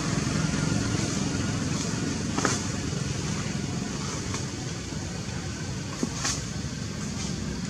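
Steady low background rumble, with a few brief faint ticks about two and a half and six seconds in.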